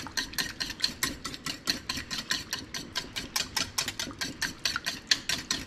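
Wire whisk beating a vinaigrette in a bowl, its wires clicking against the bowl in a quick, even rhythm of about seven strokes a second, whisking oil into the vinegar and mustard to emulsify the dressing.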